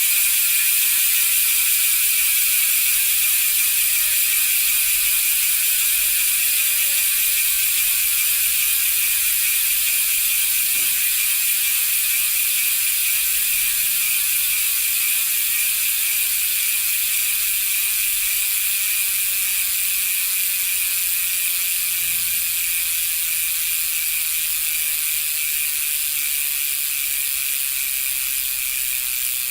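Bicycle rear freehub ratcheting as the wheel freewheels: the pawls give a fast, even clicking buzz. The rate slowly drops and the sound fades a little as the wheel spins down.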